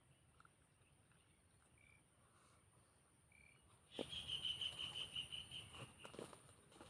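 Faint short chirps every second or two from a small calling animal. About four seconds in, a louder pulsed high trill of about five pulses a second runs for two seconds over rustling and handling noise.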